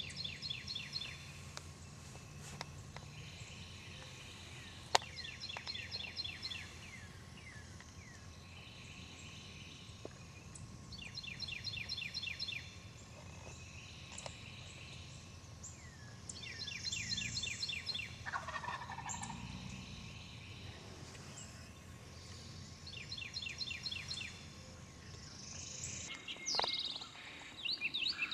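Wild turkey gobbling again and again, six rattling gobbles at intervals of about five to six seconds. A single sharp click about five seconds in.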